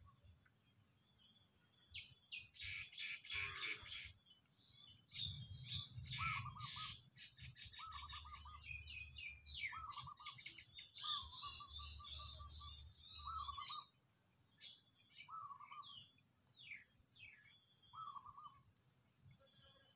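Forest birds calling: a short warbled call repeats every second or two, with quick higher chirps and trills between. The calling is busiest for the first two-thirds and thins out near the end.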